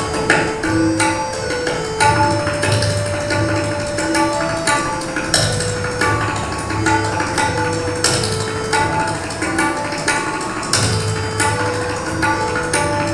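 Solo tabla playing quick, dense strokes, with deep bass strokes coming and going, over a lehra: a looping melody of held notes that keeps the rhythmic cycle.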